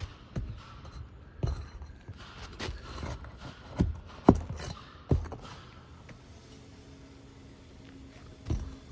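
Asphalt roof shingle being pried loose from its nails: a string of irregular sharp clicks and knocks with scraping between them, a few with short falling squeaks.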